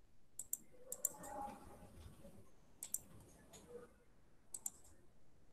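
Faint clicks of a computer mouse, mostly in quick pairs like double-clicks, spread through a few seconds.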